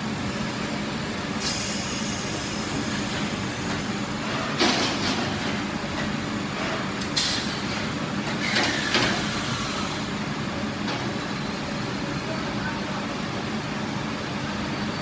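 Steady factory machinery noise around a radiator leak-test water tank, with several short hissing bursts, typical of compressed air from the test hose, and water splashing as a radiator core is handled in and lifted from the tank.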